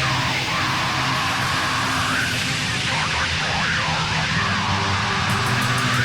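Deathcore music playing: a dense wall of distorted guitars and drums with a harsh, screamed vocal line over it.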